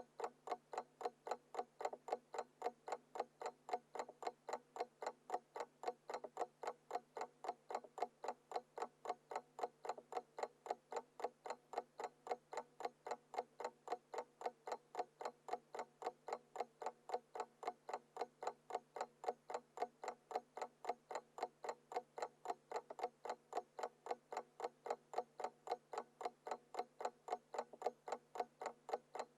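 Mechanical analog alarm clock ticking steadily, in a quick, even rhythm of a few ticks a second.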